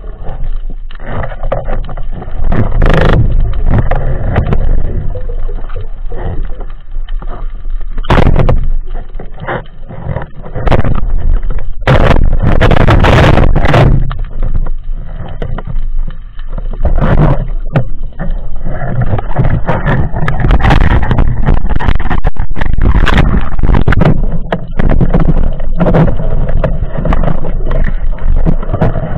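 Underwater camera-housing noise while a freediver swims with a speargun: loud low rushing water noise from movement through the water, broken by many sharp knocks and bumps.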